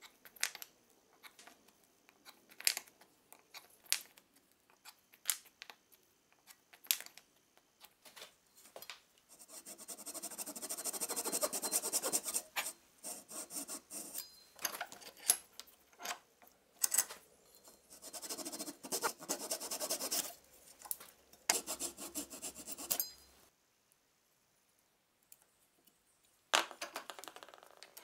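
A Japanese hand saw cutting a small wooden block, in rapid strokes over three bouts of several seconds each. Before the sawing starts, a run of separate sharp scratches, a knife scoring wood along a metal guide. After the sawing stops there is a pause, then one short burst of tool-on-wood noise near the end.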